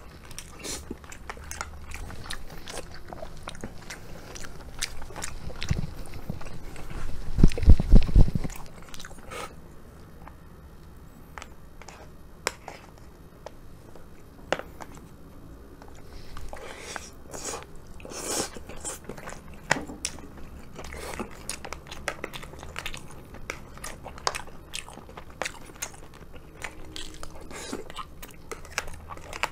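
Close-miked chewing of rice and sliced beef, with short clicks of a spoon and chopsticks in a plastic bento tray. About a quarter of the way in, a quick run of loud low thumps is the loudest sound.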